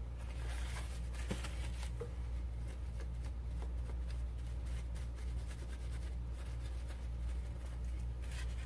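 Paper towel wiping and rubbing over a stained glass suncatcher's glass and soldered seams: a run of short, dry scratchy strokes, over a steady low hum.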